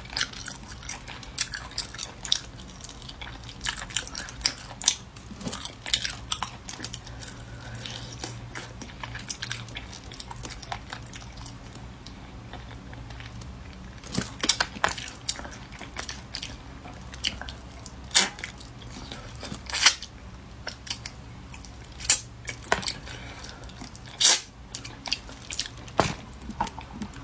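Chewing and biting on soft-shelled turtle meat gnawed off small bones, with irregular sharp, wet mouth clicks and smacks, the loudest ones in the second half.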